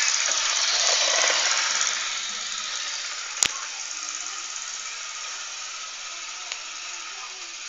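Hornby model train running along its track, a steady whirring and rattling of its small electric motor and wheels, loudest in the first two seconds as it passes close. A sharp click about three and a half seconds in.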